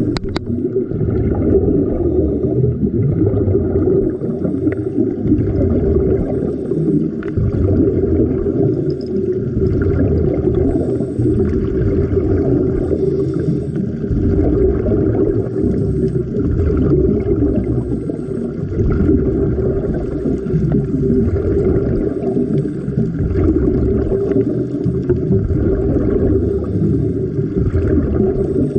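Muffled underwater noise: a dense, steady low rumble of water moving around a submerged camera, with nothing higher-pitched above it.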